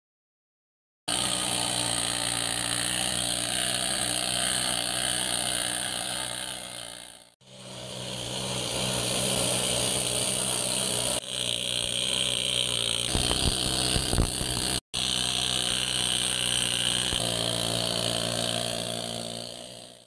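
Pneumatic needle scaler running against the steel armour of a tank, hammering off rust and old paint. It starts about a second in and runs steadily, dipping briefly near seven seconds and stopping for a moment near fifteen seconds.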